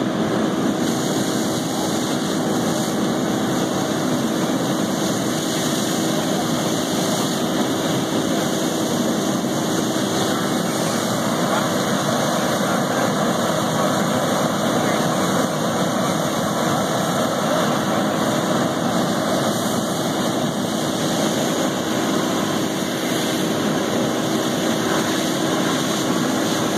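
Fire engine's diesel running steadily at pumping speed to supply the hose lines, a constant engine drone with a steady hum.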